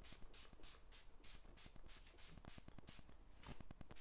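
Small finger-pump spray bottle of leather protector misting in quick repeated squirts, about three or four a second, each a short faint hiss.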